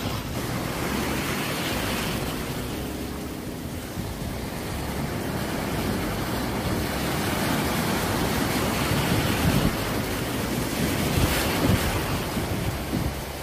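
Ocean surf washing onto a beach, a steady rush that swells louder as waves break, with some wind rumbling on the microphone.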